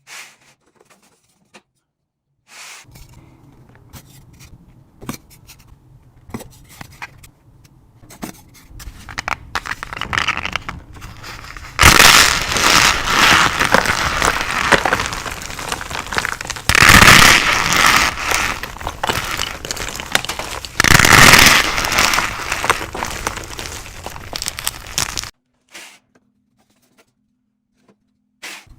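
Thin pieces of chalk and pressed cornstarch being crunched and crumbled close to the microphone. It starts with faint, scattered crackles, then comes in three loud crunching spells about twelve, seventeen and twenty-one seconds in, and stops shortly before the end.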